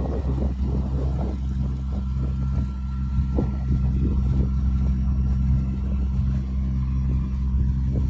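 A sailboat's inboard engine running steadily, motoring under way: a constant low hum, with irregular splashing of water and wind, stronger in the first second or so.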